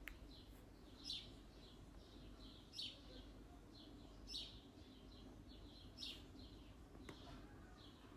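Faint bird chirping: a short high chirp about every second and a half to two seconds, with softer chirps in between, over a low steady background hum.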